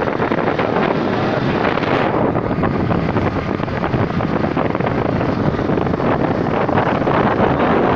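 Wind rushing over the microphone on a moving motorbike, a loud, steady noise that turns duller about two seconds in.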